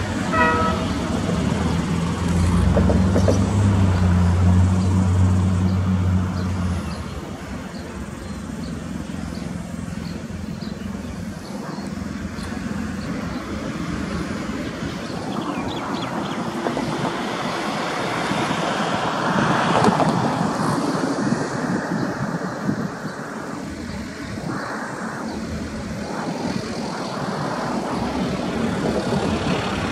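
Road traffic noise mixed with a diesel freight locomotive approaching in the distance. A steady low hum is heard for the first several seconds, then the noise swells and fades around the middle.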